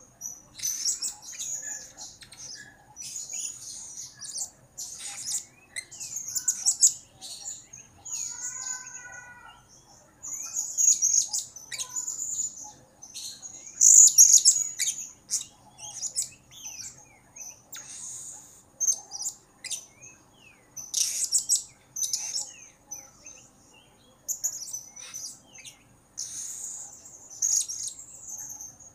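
Blue-crowned hanging parrot (serindit) calling: very high, thin chirps and short twittering runs in bursts every second or two, with one lower wavering note about eight seconds in.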